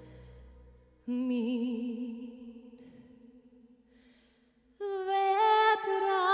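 A woman singing a slow ballad live. About a second in comes a soft, low note with vibrato that fades away over a faint held accompaniment note. Near the end she comes in suddenly with a loud, higher note held with vibrato.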